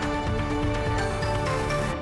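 Closing theme music for a news channel's logo sting: held synth notes over a pulsing low beat.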